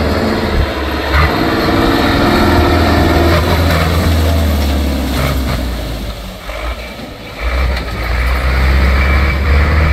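Farm tractor's diesel engine running hard under load as it climbs a dirt track and pushes through mud. The engine note drops away briefly a little past the middle, then comes back strong.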